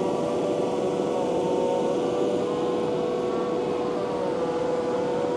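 Takeuchi TL12 V2 track loader driving a high-flow Conetex rotary soil conditioner attachment, running steadily as it grinds grass into the soil. It makes a constant high whine over a rough mechanical noise, and the pitch dips slightly about four seconds in.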